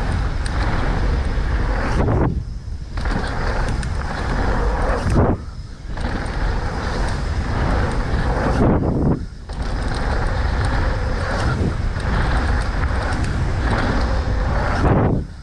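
Mountain bike ridden fast down a dirt trail: steady rumble of tyres and rattling bike, with wind rushing over the microphone. The noise drops away abruptly four times for a moment, then comes back.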